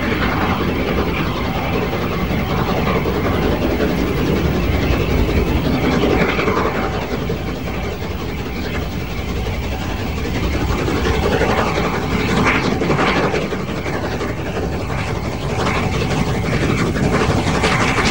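Peppercorn A2 class Pacific steam locomotive No. 60532 Blue Peter hauling a long train toward the listener: steam exhaust and the running of the train on the rails, loud and continuous.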